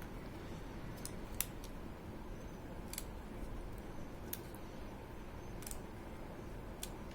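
A handful of light, sharp clicks and taps, roughly one every second or so, over faint steady room noise, as of small parts of an opened laptop being handled.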